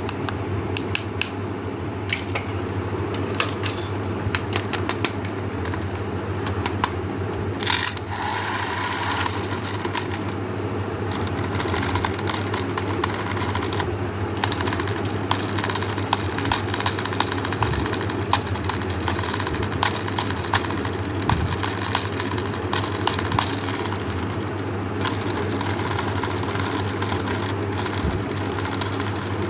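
Many rapid, irregular small clicks and taps over a steady low hum, with a brief louder rustle about eight seconds in.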